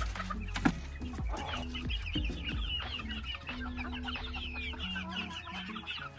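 A flock of young chickens cheeping and clucking: many short, high calls overlapping throughout. A single sharp knock sounds about two-thirds of a second in.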